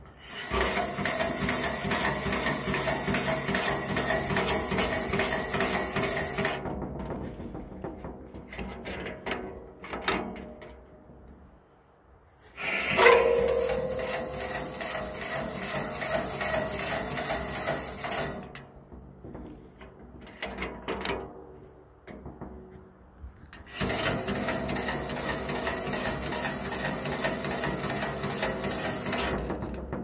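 Atlas hand filer cranked against a tooth of a circular sawmill blade: steel being filed in three spells of steady rasping, each about five or six seconds, with quieter clicks and handling between them. A short metallic ring sounds as the second spell starts.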